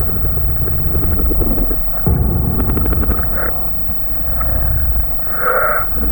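Sound-designed monster growl: a deep, loud rumbling growl that swells suddenly about two seconds in, with a short higher-pitched snarl near the end.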